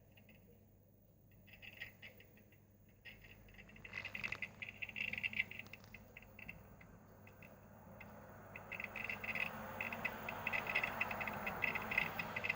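Cata MC 20 D microwave oven making a strange rapid scratchy crackling in irregular bursts over its steady running hum. The crackling grows louder and almost continuous in the second half.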